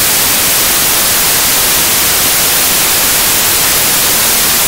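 Loud, steady static hiss with no other sound in it: a noise glitch in the recording's audio track.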